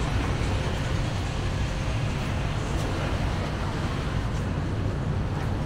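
Steady city street noise: a constant low rumble under an even hiss, with no clear voices standing out.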